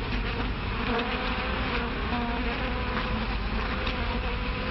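A swarm of bees buzzing loudly and steadily on an old, narrow-band film soundtrack.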